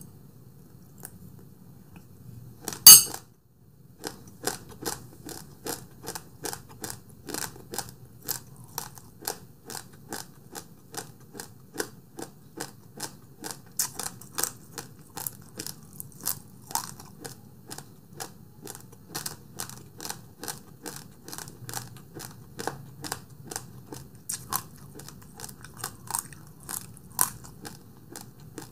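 A person chewing a mouthful of rice close to the microphone, with steady wet chewing clicks about two to three a second. About three seconds in there is a single loud clink of tableware.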